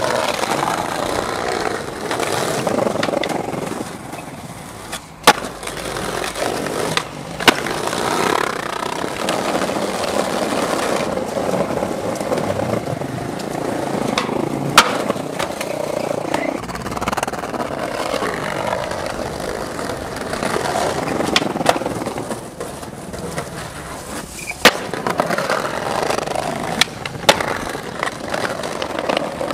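Skateboard wheels rolling over brick pavers in a continuous rough grind, with about five sharp cracks of the board striking the ground during tricks.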